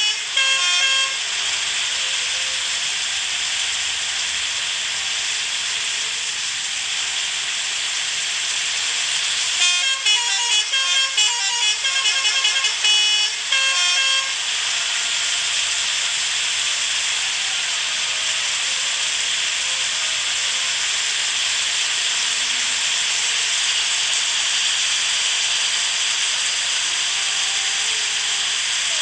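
Bus telolet horn, a multi-tone musical horn, playing a quick run of changing notes. It sounds briefly at the very start and again for about four seconds near the middle. The rest is a steady hiss.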